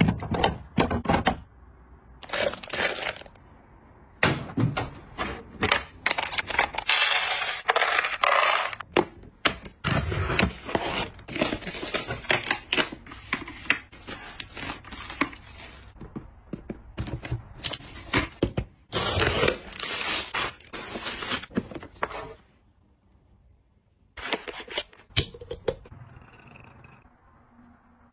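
Close-up household handling sounds in quick succession: many sharp clicks and knocks as plastic bottles are set into a fridge-door shelf, rustling as cling film is pulled from its box, and liquid poured into a glass bottle near the end.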